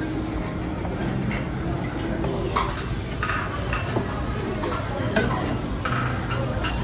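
Metal utensils clinking and tapping against dishes: a handful of sharp clinks with a short ring, over a low background murmur.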